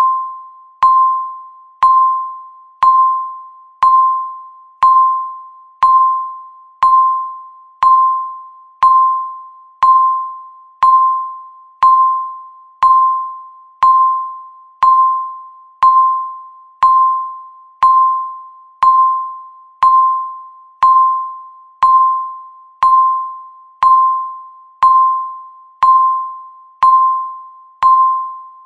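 Countdown timer's electronic beep sounding once a second: a single ringing tone that starts sharply and fades away before the next beep, repeated evenly about 29 times.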